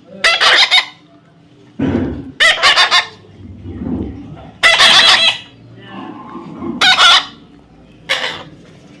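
Parrot giving loud, harsh screeching calls, five in a row about two seconds apart, with softer, lower sounds in between.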